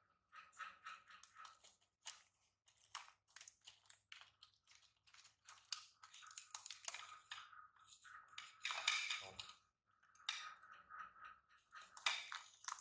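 Baby monkey eating popcorn: irregular crunching and crackling as the popcorn is chewed and picked up, loudest about nine seconds in.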